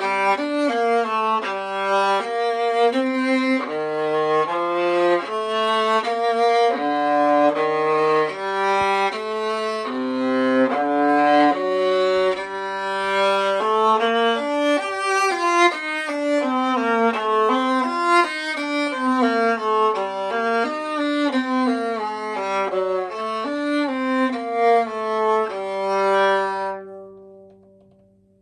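A c.1930 15.5-inch one-piece-back viola labelled Stradivarius, played solo with the bow. It plays a melodic passage of separate notes that dips several times into its low register. The passage ends on a long held note that fades away near the end.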